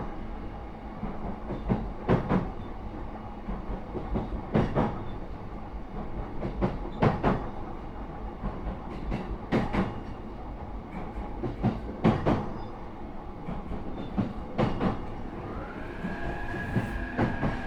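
Cabin running sound of a JR East E233 series 3000 electric train: a steady low rumble with the wheels clicking over rail joints in pairs about every two and a half seconds. Near the end an electric whine rises and then holds steady.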